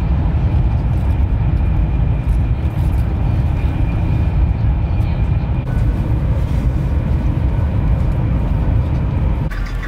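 Steady low rumble and running noise of a moving vehicle, with a faint high whine above it.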